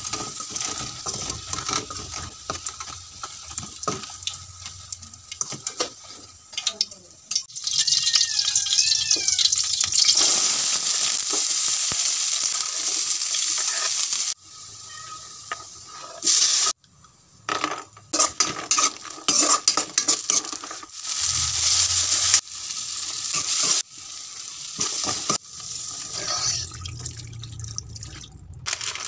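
Oil sizzling as gobi pakoda (cauliflower fritters) deep-fry in a steel kadai, with a slotted metal spoon clinking and scraping against the pan as it turns them. After that comes frying onions and chillies, then masala stirred with a spoon. The sizzle stops suddenly a few times at cuts.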